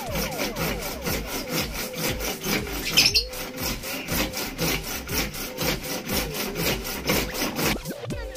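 Hand hacksaw cutting through PVC pipe in quick, even back-and-forth strokes, with a louder scrape about three seconds in.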